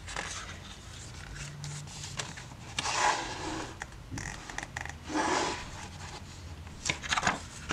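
Pages of a paperback photobook being turned by hand: three short papery swishes, about two seconds apart.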